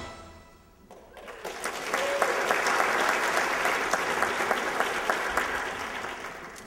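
Audience applauding: the clapping starts about a second in, holds steady, then dies away near the end.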